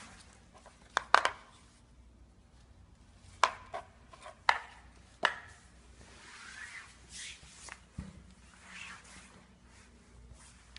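Sharp, irregular clicks and knocks, about eight in all, with soft fabric rustling in between, from a zombie-baby Halloween toy and its handling on a hard floor.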